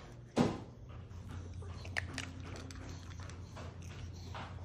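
Small Maltese dog chewing food from a hand: soft chewing and crunching clicks, with one louder short noise about half a second in.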